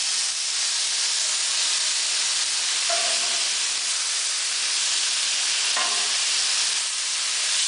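Steak pieces sizzling steadily on a hot ridged grill pan, a continuous high hiss.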